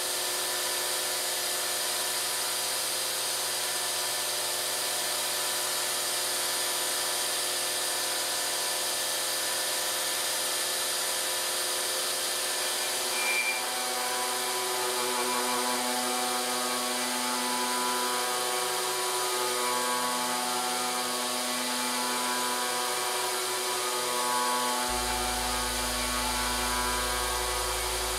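DIY CNC milling machine cutting titanium with a 3-flute carbide end mill at 7500 RPM: a steady whine and hiss of the spindle and cut at an even level. From about halfway in, background music with slow sustained chords fades in under the machining, with a deep bass near the end.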